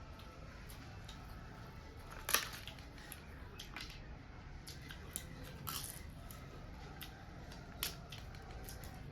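Eating sounds close to the microphone: irregular crisp clicks and crunches of chewing, the sharpest about two seconds in.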